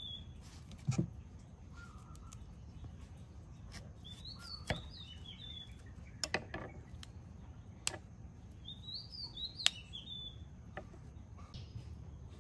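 A songbird repeats the same short, high warbled phrase twice, about five seconds apart. Sharp knife taps on a wooden chopping block as broccoli florets are cut off are the loudest sounds.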